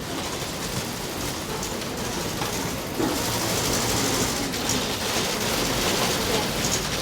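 Bank interior ambience: a steady wash of busy-room noise with faint mechanical clatter, growing a little louder about three seconds in.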